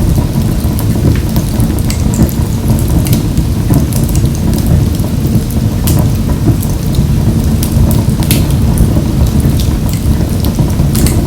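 Wood fire burning in a wood-burning stove: a steady low rumble of the flames with scattered sharp crackles and pops, several a second.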